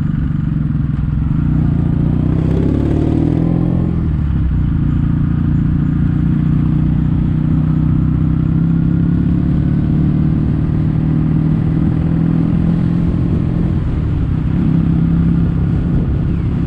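Kawasaki W800's air-cooled parallel-twin engine running steadily under way through stainless-steel Cabton-type silencers.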